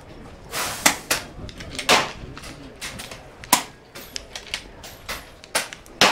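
Pre-charged pneumatic air rifles firing along a firing line: a string of sharp cracks at uneven intervals, about ten in six seconds, some louder and closer than others.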